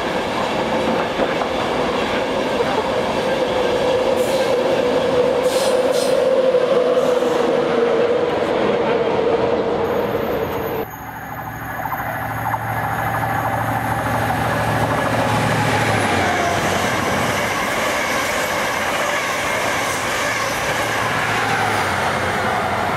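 An electric express train running through on the far tracks, with a steady rail rumble. After an abrupt cut about eleven seconds in, a Virgin Class 43 HST diesel power car, 43319, approaches and passes close by with its engine humming.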